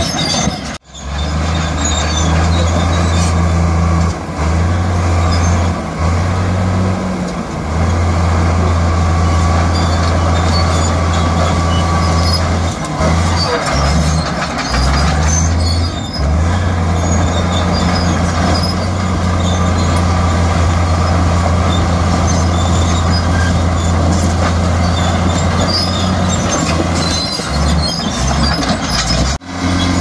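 Heavy earthmoving machine's diesel engine running steadily under work, its low note dipping briefly now and then. Scattered small clinks ride over it. The sound drops out sharply about a second in and again near the end.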